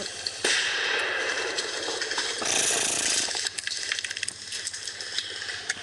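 Airsoft guns firing in a skirmish: a scatter of sharp clicks and snaps, most of them in the second half, over a steady hiss that briefly grows brighter about two and a half seconds in.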